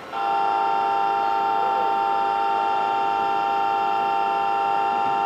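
A departure signal sounding for the Tama Densha: one long, steady chord-like tone held for about five and a half seconds, starting and stopping abruptly.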